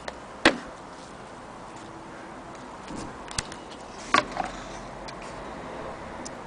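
A few sharp clicks and knocks over a steady hiss, the loudest about half a second in and another pair around four seconds: handling noise as the wooden-cased barometer is held and moved.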